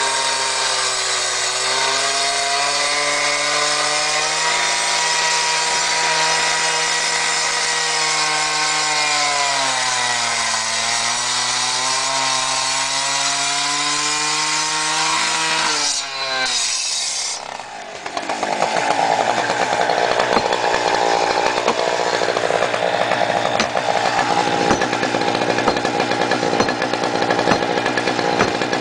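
Two-stroke rotary rescue saw running hard as its blade cuts into a concrete block wall, its pitch sagging under load about ten seconds in and then recovering. It stops about 16 seconds in. After a short gap, a rougher, rattling mechanical sound with fast ticks takes over.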